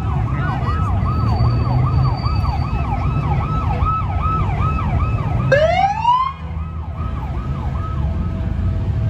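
Police siren in rapid yelp mode, sweeping up and down about three times a second over a low rumble of engines. About five and a half seconds in, a single rising whoop cuts in, and the yelp then fades out.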